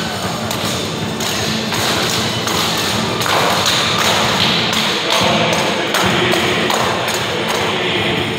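Pandeiretas (tasselled tambourines) being struck in a quick, even rhythm of sharp thumps and jingles during an acrobatic tambourine routine, with guitars and mandolins strumming underneath.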